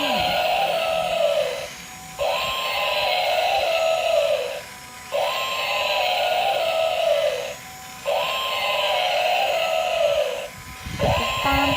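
Battery-powered toy mammoth's electronic sound effect playing over and over from its small speaker, about every three seconds, each call sliding down in pitch at its end.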